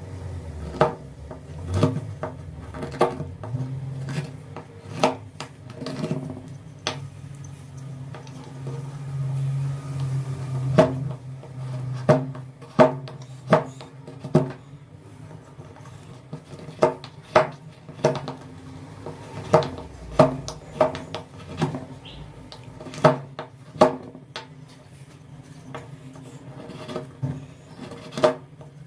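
Hand woodcarving: irregular sharp taps and knocks of tools against wood, some ringing briefly, with a low hum that swells for a few seconds near the middle.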